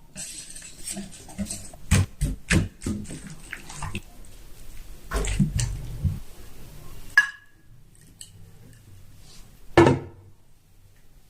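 Kitchen work sounds: a steady hiss like running water for the first several seconds, with repeated knocks and clatters of dishes or utensils, and one louder knock near the end.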